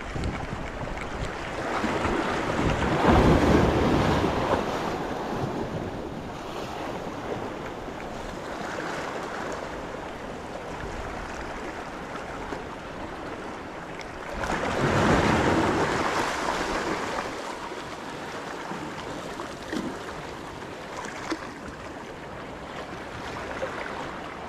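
Small sea waves washing in at the shore, with wind on the microphone; the surf swells louder twice, about three seconds in and again about halfway through.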